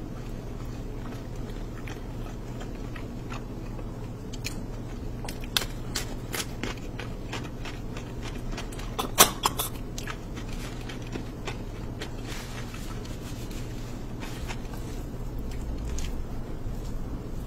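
Eating sounds: a person chewing and handling rice and curried mutton by hand, with scattered small clicks and crackles and one sharper click about nine seconds in, over a steady low hum.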